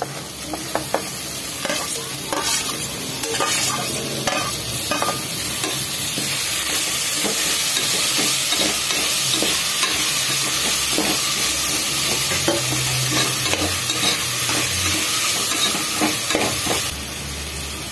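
Chopped tomatoes and onions sizzling in hot oil in a pressure cooker, the tomatoes tipped in at the start, with a spatula repeatedly scraping and clacking against the pot as they are stirred.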